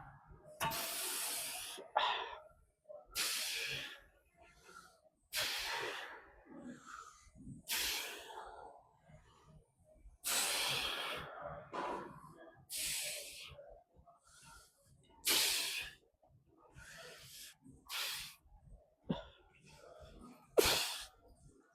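A man breathing hard through a set of machine shoulder presses, with a forceful hissing exhale on each rep about every two to three seconds.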